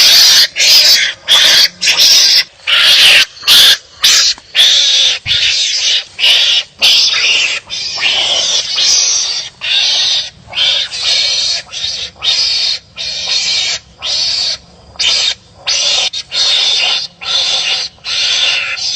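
Wild animals barking at each other in a fight: a fast run of short harsh cries, about one or two a second, with brief gaps between them.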